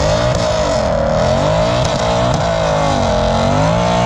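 Car engine revving, its pitch climbing and dropping several times in a row.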